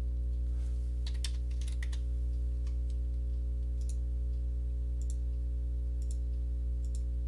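Steady low electrical hum with computer mouse and keyboard clicks over it: a quick run of clicks about a second in, then single clicks roughly once a second.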